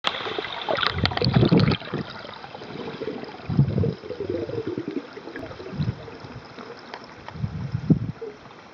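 Underwater recording from a waterproof camera: muffled swishing and rumbling of water moving over the camera body, swelling about every two seconds as the swimmer moves along the pool floor, over a steady hiss.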